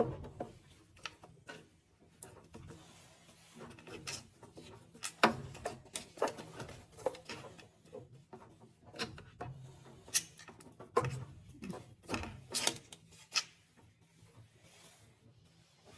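Irregular clicks, knocks and scraping of tools and parts being handled during furnace work, over a faint steady low hum.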